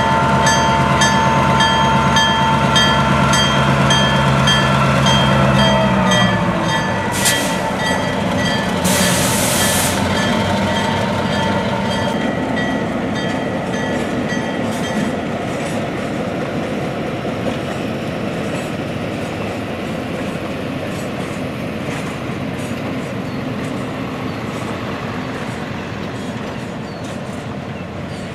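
EMD diesel locomotive passing with its train: the engine's steady drone drops in pitch about six seconds in, over a steadily repeating ring like a locomotive bell. Two short hisses of air come around seven and nine seconds, and then the rumble of wheels on rail fades as the train moves away.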